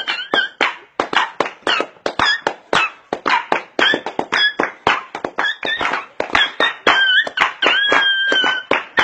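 Music with a fast, steady percussive beat of sharp taps, under high held whistle-like notes that bend briefly in pitch.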